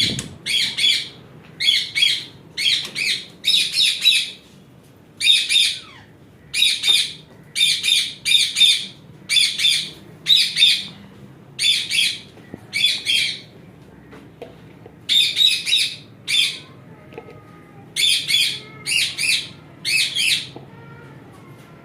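A parrot calling over and over: loud, sharp calls in quick clusters of two or three, repeated for about twenty seconds before stopping.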